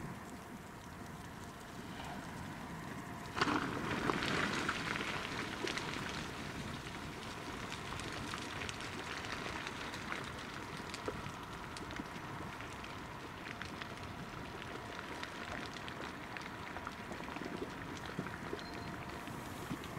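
Molten copper slag pouring from a tipped rail slag pot down a slag heap. It comes in suddenly about three and a half seconds in as a loud rush, then carries on as dense crackling with many small sharp pops.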